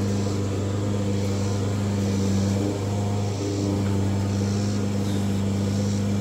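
A steady, low mechanical hum that holds level throughout, with no hammer blows.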